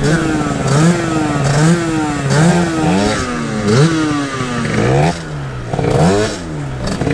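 Two-stroke moped engine revved in quick repeated throttle blips, about one every three-quarters of a second, each rev climbing sharply and then sagging back.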